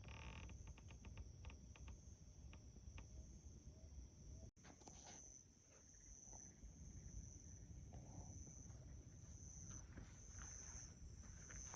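Faint, steady high-pitched chirring of insects, pulsing in places, with a few soft clicks and scuffs.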